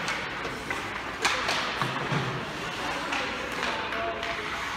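Several sharp thuds over a steady background of voices.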